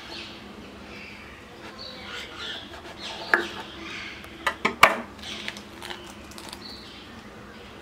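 A knife cutting through a fried, gram-flour-battered vada pav on a wooden board, with soft crackling from the crust and a few sharp knocks in the middle. The crust crackles again as the halves are pulled apart by hand.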